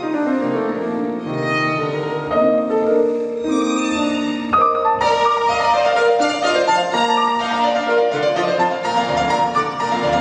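Classical music for violin with piano accompaniment, a bowed violin melody over sustained piano chords that moves into a higher register about halfway through.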